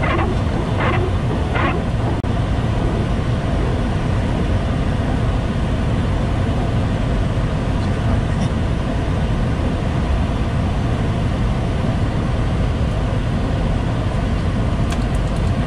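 Steady flight-deck noise of a Boeing 737-800 on final approach: a constant rush of airflow with the drone of its CFM56 engines, heard inside the cockpit. Two short, brighter sounds stand out about a second in.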